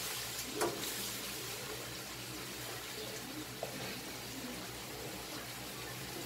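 Ground meat sizzling as it lands in hot oil in a wok with browned garlic and onion: a steady frying hiss, with one brief knock under a second in.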